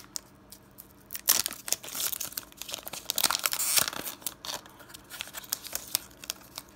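Foil wrapper of a Pokémon TCG booster pack crinkling and tearing as it is ripped open, in dense bursts of crackle for a few seconds. It settles into quieter rustling as the cards are slid out.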